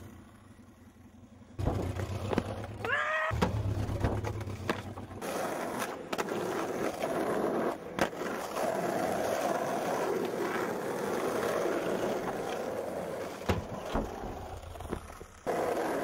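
Skateboard wheels rolling over rough asphalt, a steady gritty rumble with a few sharp clacks of the board along the way.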